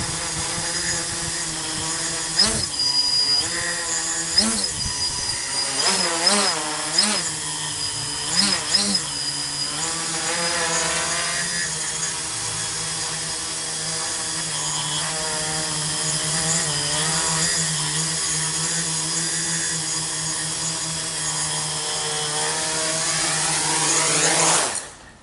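Tricopter's three 2216 900 kV brushless motors spinning 8x4.5 carbon-fibre propellers in a hover, a steady buzz whose pitch swings up and down with throttle corrections. The motors stop abruptly near the end, with the craft landed.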